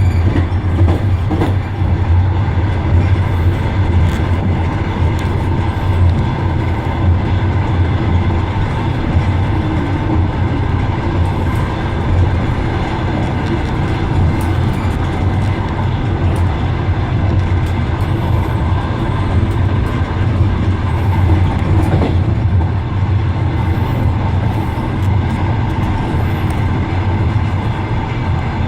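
Passenger train running at speed, heard from aboard: a steady rumble of the wheels on the track with a low hum and scattered light clacks of the wheels over the rail joints.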